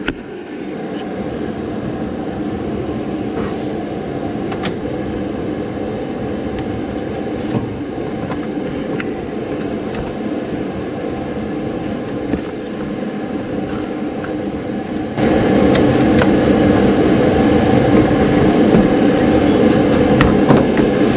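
Steady mechanical drone of machinery running in the background, with a few light clicks and knocks of parts being handled under the hood. The drone turns suddenly louder about fifteen seconds in.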